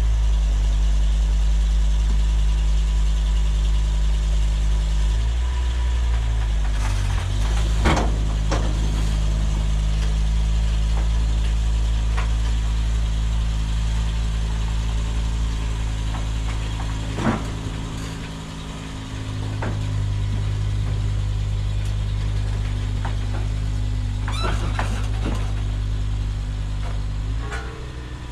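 Vehicle engine running steadily at even revs, its low hum shifting a few times, with a few short sharp clicks or taps.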